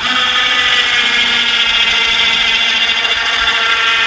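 Chainsaw running at high, steady revs, cutting in suddenly at the start.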